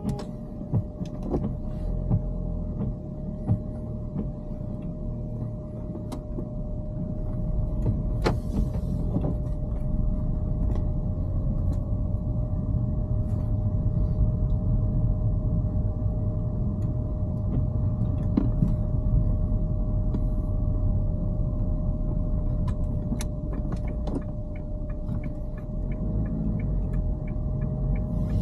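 Dacia Duster on the move, heard from inside the cabin: a steady low engine and road rumble that grows louder a few seconds in as the car picks up speed, with a faint steady whine and scattered light clicks and rattles.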